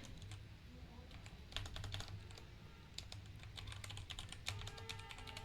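Typing on a Kreo computer keyboard: irregular runs of quick key clicks. A faint steady hum with several tones comes in near the end.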